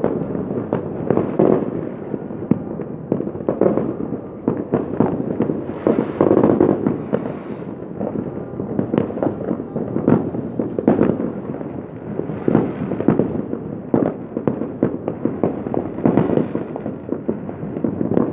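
Fireworks going off in a continuous barrage of many overlapping bangs and crackles, with no pause.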